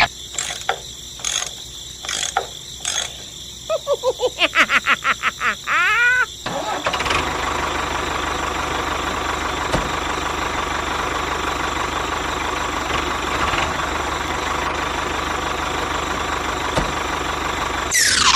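Vehicle engine starting: a few clicks, then rapid cranking for about three seconds before it catches about six seconds in and runs steadily. A falling whoosh comes near the end.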